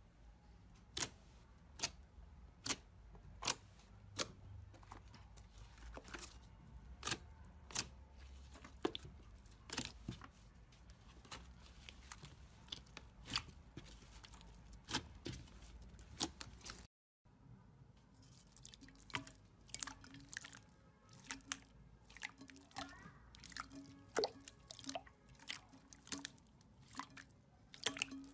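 Slime being squeezed and poked by hand, giving a run of sharp, wet clicks and pops, one or two a second. It breaks off briefly about halfway through, then goes on with more pops.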